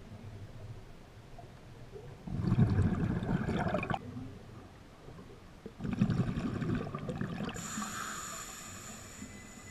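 Scuba diver's exhaled breath bubbling out of the regulator past the camera underwater, twice, about three and a half seconds apart, each a loud bubbling rush lasting one to two seconds.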